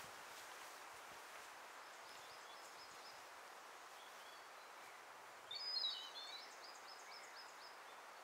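Songbirds calling in woodland over a faint steady hiss: scattered short high chirps, with a brief louder run of quick high notes about five and a half seconds in.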